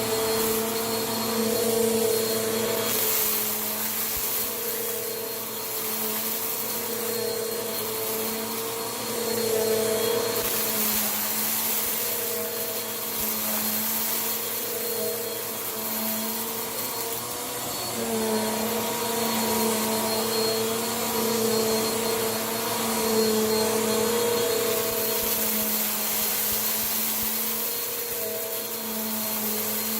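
Vacuum cleaner running steadily, sucking up gritty dirt from the floor: a constant motor hum under a rushing hiss of air that swells and eases every few seconds as the head is pushed back and forth.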